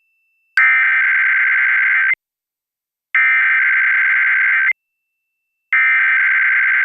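Emergency Alert System SAME header: three bursts of digital data tones, each about one and a half seconds long and about a second apart, announcing a required weekly test.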